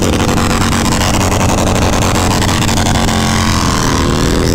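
Harley-Davidson Roadster's air-cooled 1200 cc V-twin engine running steadily while riding, with wind rushing over the microphone.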